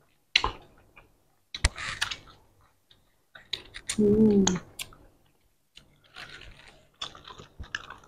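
Close-miked eating sounds of roti canai with curry eaten by hand: wet mouth clicks, lip smacks and chewing, with finger-licking. A short hummed "mm" about four seconds in.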